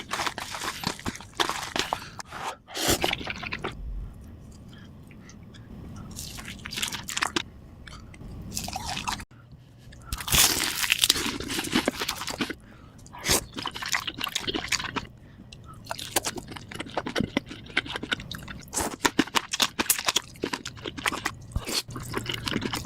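A person chewing and biting food, with crisp crunches and wet, squishy mouth sounds, in dense runs and a few quieter pauses.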